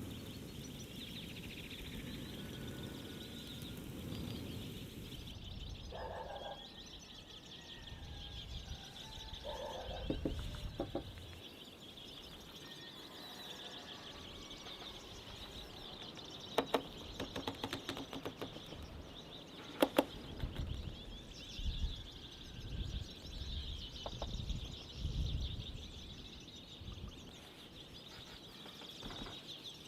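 Countryside ambience with a steady high chirping of birds throughout. A few sharp clicks come around the middle, followed by several dull knocks.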